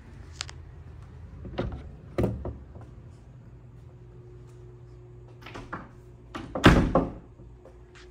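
A door with keys in its lock being handled: a series of clicks, knocks and rattles, the loudest a thud about seven seconds in.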